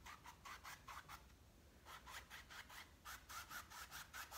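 Faint, quick back-and-forth strokes of a paintbrush dry-brushing white acrylic paint across a canvas with almost no pressure, about four strokes a second, with a short pause about a second in.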